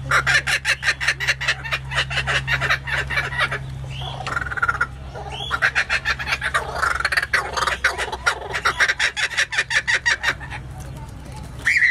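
Laughing kookaburra giving its laughing call: two long bouts of rapid repeated notes, the second beginning about halfway through after a short lull. A low steady hum runs underneath.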